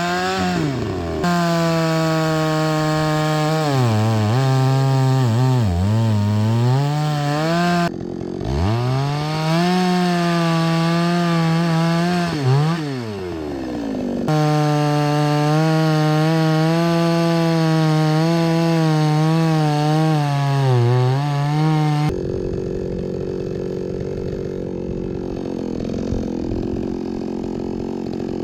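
Two-stroke chainsaw running at high revs while cutting through logs, its pitch sagging and recovering as the chain bites into the wood. It breaks off and restarts several times, and after about 22 seconds gives way to a lower, rougher, steadier running sound.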